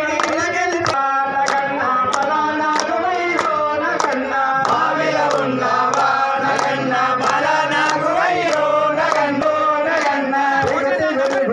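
A group of male devotees chanting a devotional song in unison, keeping time with hand claps at about three every two seconds.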